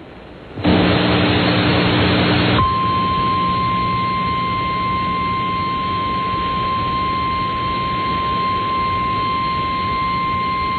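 NOAA Weather Radio 1050 Hz warning alarm tone, the attention signal that precedes a broadcast emergency alert, here a tornado warning. It is one steady, unwavering tone over radio static, starting about two and a half seconds in. Before it, from about a second in, there is a couple of seconds of loud static hiss with a low hum.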